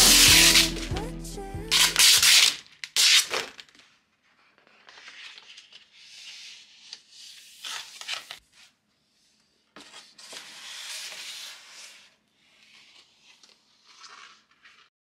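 Protective plastic film peeled off the plastic front of an IKEA FISKBO picture frame with a crackling rustle, then several separate bouts of paper and a backing board sliding and rubbing in the frame. A song fades out in the first couple of seconds.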